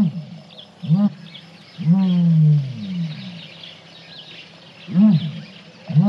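Common ostrich giving its low booming call: two short booms, then a longer one that falls slightly in pitch. The series starts again about five seconds in. Small birds chirp faintly in the background.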